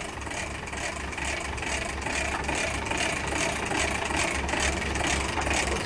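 Sport-fishing boat's engine running steadily at trolling speed under a fast, even clicking of about five a second that grows slowly louder: a big-game trolling reel's ratchet clicker as line pays out to a strike.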